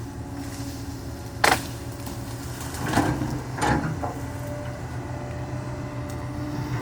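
Hitachi excavator's diesel engine running steadily under work. About a second and a half in there is a sharp crack, and around three seconds in two louder crunching bursts, of tree wood breaking as the machine pushes the trees down.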